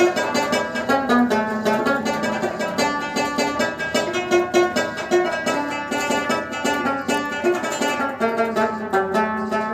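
Instrumental ringtone music: a melody on a plucked string instrument with many quick notes, played as an Islamic naat-style ringtone tune.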